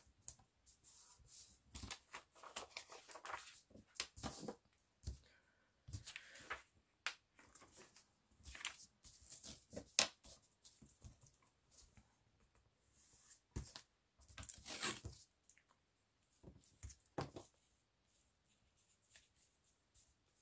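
Loose paper pages of old children's picture books being handled and shuffled on a tabletop: irregular rustles and sharp little taps, thinning out near the end.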